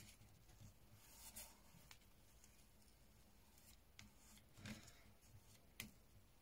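Faint scratching of a flat paintbrush spreading PVA glue over cardboard, with a few soft taps, about a second in, near the middle and near the end.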